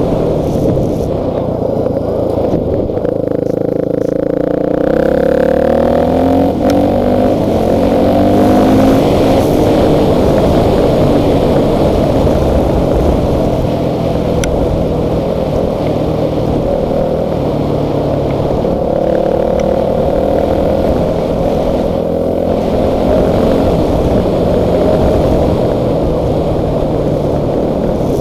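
Dirt bike engine running while riding, its pitch rising and falling as the throttle opens and eases off, over a rough rushing noise.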